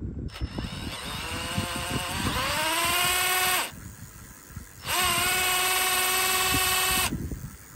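Cordless drill motor mounted on a bicycle frame, driving the raised rear wheel through a chain. It whines up in pitch over a couple of seconds, runs steadily and cuts off, then comes back up to speed quickly, holds for about two seconds and stops again near the end.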